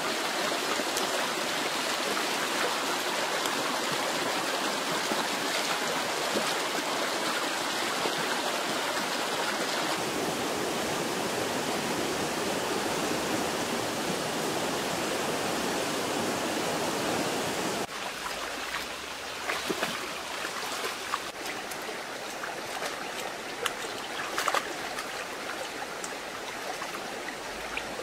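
Shallow river running over rocks, a steady rushing of water. About two-thirds of the way through it drops quieter, and a few short clicks and small splashes come through.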